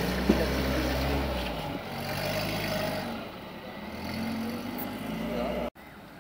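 Volvo military off-road vehicle's engine running under load at low speed as it crawls through a muddy rut, its pitch rising and falling with the throttle, with one sharp knock just after the start. Near the end the sound cuts to a quieter, more distant engine.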